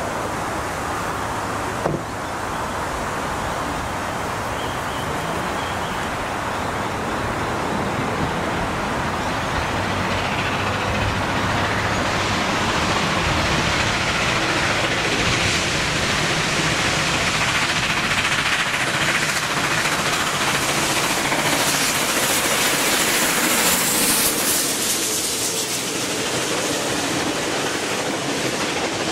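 Steam locomotive 5917 hauling a passenger train at speed, growing steadily louder as it approaches and passes, loudest near the end, then its carriages rolling by on the rails.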